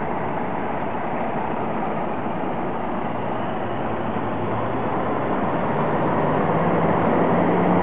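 Car engine running at idle. About two-thirds of the way through, another engine's note comes in and grows steadily louder, rising slightly in pitch, as a car approaches.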